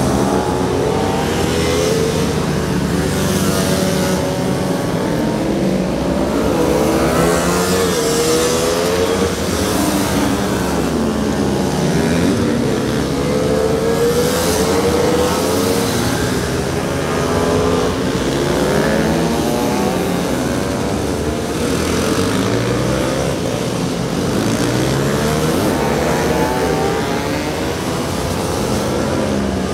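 Several racing motorcycle engines revving up and easing off in turn through the corners, their pitches rising and falling over one another.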